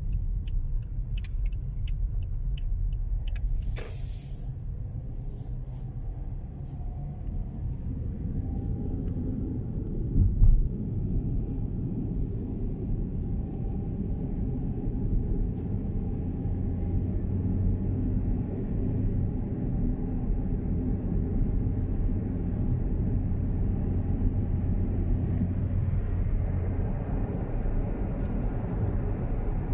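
Car cabin noise while driving: a steady low rumble of engine and tyres on the road, with a brief hiss about four seconds in and a single thump about ten seconds in. The rumble grows a little louder near the end.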